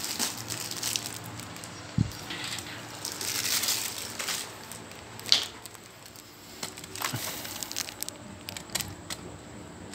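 Plastic bags of small electronic parts crinkling and rustling as hands rummage through bins, with scattered sharp clicks of parts knocking together. A dull knock about two seconds in, and a sharper click a little past five seconds.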